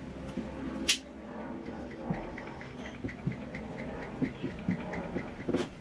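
Upholstery fabric and a cardboard box being handled as the fabric is lined up and stretched over the box, with scattered soft rustles and knocks and one sharp click about a second in.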